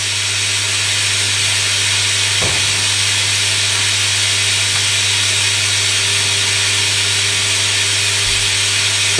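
Hoover Electronic A3172 washing machine running mid-programme: a steady hiss over a constant low hum.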